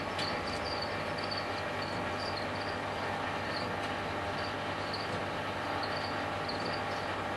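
Steady low hum and hiss, with faint short high chirps repeating irregularly about twice a second.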